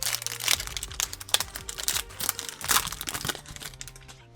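Wrapper of a 2024 Panini Donruss football card pack being torn open and crinkled, a run of quick crackling rustles.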